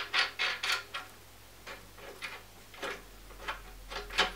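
Small metal clinks and clicks of a washer and nut being fitted and run on by hand onto the threaded rod of a bottom bracket bearing press tool. A quick cluster in the first second, scattered lighter clicks, then a few louder ones near the end.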